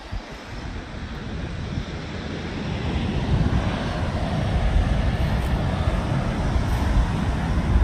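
Wind buffeting the microphone in low rumbling gusts, over the wash of surf breaking on the beach, both getting louder a few seconds in.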